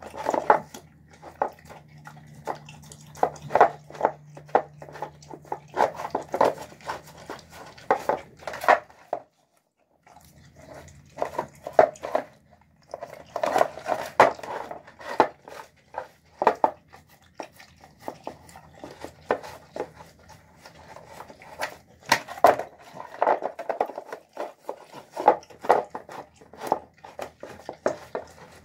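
Dog licking and eating out of a nearly empty plastic bowl: irregular wet smacks and clicks of its tongue and muzzle against the bowl, several a second. The sound breaks off for about a second around nine seconds in.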